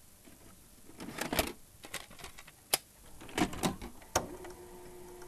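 Video cassette recorder loading a VHS tape: a run of mechanical clicks and clunks, then a sharp click just after four seconds, followed by a steady motor hum.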